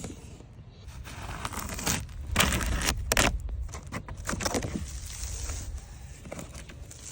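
Packaging being handled and torn open: irregular rustling, crinkling and scraping, busiest from about two to five seconds in.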